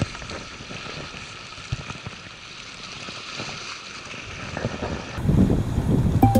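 Sea waves and wind buffeting the microphone at a rocky shore. About five seconds in the sound turns louder and lower. Near the end there is a sharp click with a short tone stepping down in pitch.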